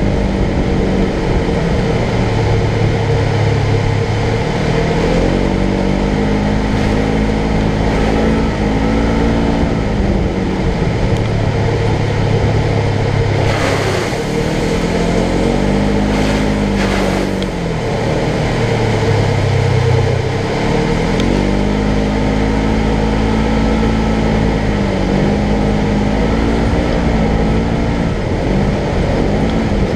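Polaris General XP 1000's parallel-twin engine pulling the side-by-side along, its pitch climbing and falling several times as the throttle is opened and eased. About 14 seconds in comes a short rush of noise from thrown-up mud and dirt, and a second one a couple of seconds later.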